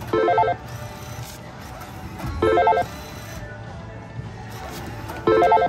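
Electronic bell-like ringing from a casino slot machine, in three short trills about two and a half seconds apart, over a steady low machine hum.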